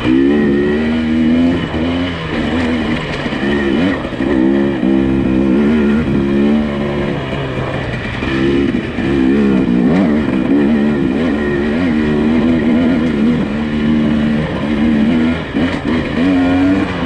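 Nissan Pathfinder SUV's engine working on an off-road trail, its revs rising and falling again and again as the driver feeds throttle over rough ground.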